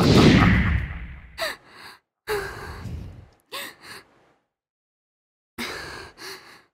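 A woman's laboured breathing: a series of short gasps and sighs, some with a slight voiced groan, separated by silent gaps. The breathing is that of someone ill with fever and aches. A loud sound fades out over the first second.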